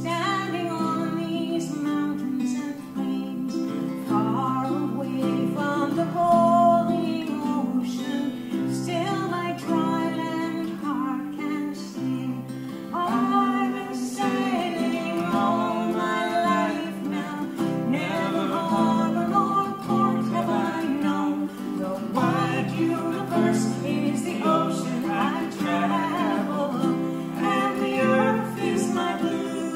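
Live folk song: a woman singing to acoustic guitar and ukulele accompaniment.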